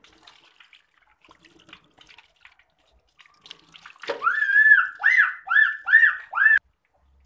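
Water from a hose trickling and splashing in a steel sink, then about four seconds in a cat meows loudly five times in quick succession, the first call longer than the rest.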